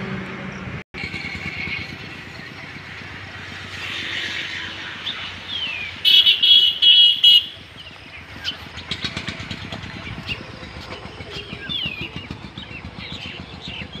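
Roadside ambience with motor traffic running. A vehicle horn sounds in several short, loud blasts about six seconds in, followed by birds chirping.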